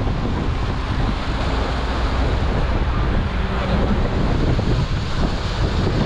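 Strong storm wind buffeting the microphone over breaking waves, a steady, dense rush with heavy low rumble. The wind comes from Hurricane Idalia's approach.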